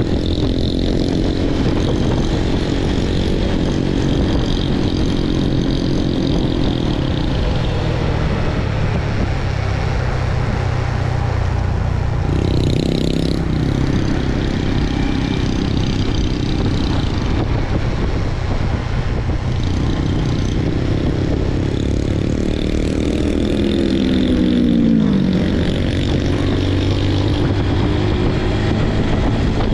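Motorcycle engine running at riding speed with wind noise, its note dropping as the bike slows about three-quarters of the way through.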